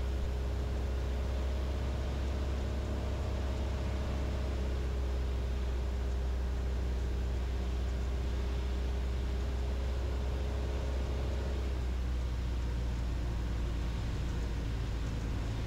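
Steady low drone of a Beechcraft Sierra's four-cylinder Lycoming IO-360 engine and propeller heard inside the cockpit on short final for landing, with a faint steady whine that fades out about twelve seconds in.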